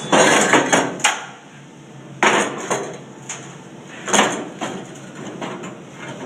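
A run of sharp metallic knocks and clanks as metal workpieces are handled and set down on a bench. The knocks are densest and loudest in the first second, then come singly every half second or so until about two-thirds of the way through.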